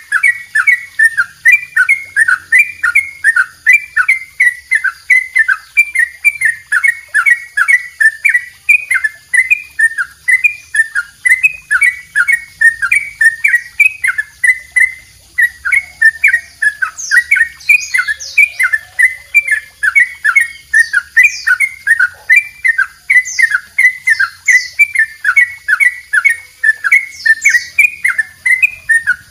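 Caged yellow-vented bulbul (cucak trucuk) singing its long 'double roll': an unbroken run of quick, repeated chattering notes, about three to four a second, with no pause.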